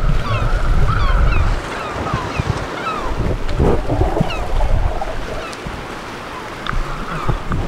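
Seabirds giving many short, high, falling calls over the sound of wind and sea water around a small boat. A heavy low rumble of wind on the microphone eases off about a second and a half in.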